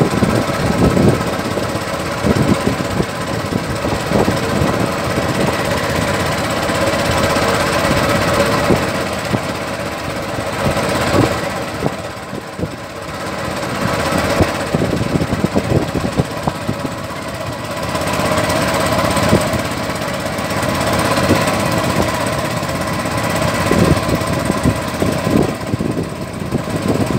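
Katinting boat's small single-cylinder engine running steadily under way, loud, with wind and water noise over it.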